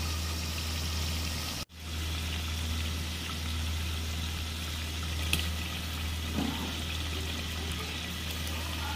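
Steady low hum with an even hiss from a clay handi of chicken curry cooking on a stove. The sound drops out for an instant about two seconds in, and there are a few light clicks later on.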